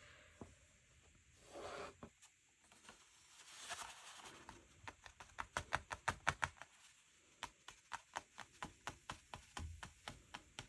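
Soft rustling, then a fast run of small sharp clicks or taps, about three or four a second, from about halfway through.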